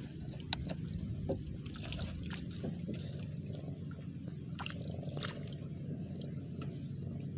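Wet fishing line being hauled in by hand over the side of a small outrigger boat into a basin, with scattered small clicks and water slosh over a steady low rumble.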